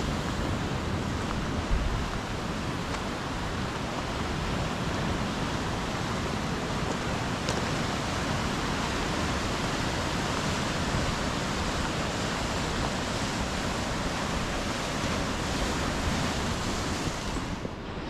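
Ocean surf and wind: a steady rushing noise that eases off near the end.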